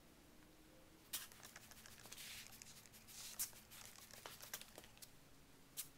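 Faint crinkling and tearing of adhesive tape liner being peeled and handled, with a few sharp clicks, starting about a second in and stopping near the end.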